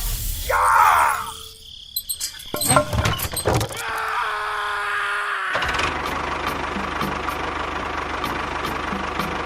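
A mix of clicks, knocks and short tones, then from about six seconds in an engine running steadily with a regular faint ticking.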